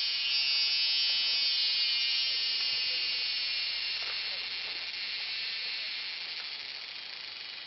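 Steady high-pitched drone of a forest insect chorus, slowly fading.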